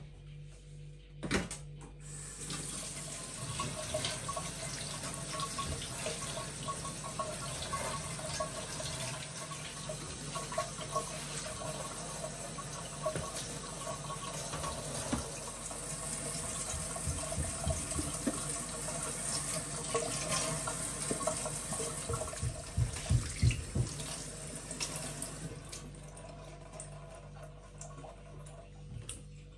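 Kitchen mixer tap running into a stainless steel sink while a whole raw chicken is rinsed and rubbed under the stream, the water splashing off the bird. A sharp knock comes just before the water starts, a few dull thumps come near the end, and the water stops a few seconds before the end.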